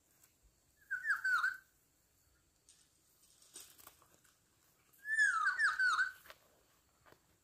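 Fluty whistled call of a black-naped oriole (kepodang): a short phrase of downward-slurred notes about a second in, and a longer one around five seconds in. Faint rustling and ticks come between them.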